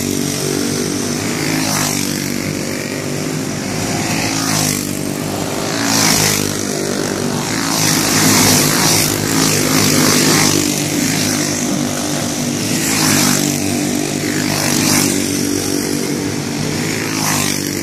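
A pack of dirt-oval racing karts with small single-cylinder clone engines running hard around the track. The sound swells several times as karts pass close by.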